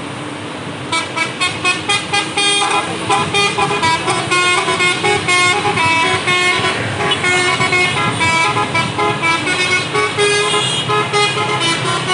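A tour bus's telolet (basuri) multi-trumpet horn plays a fast melody, note after note, starting about a second in over the bus's engine.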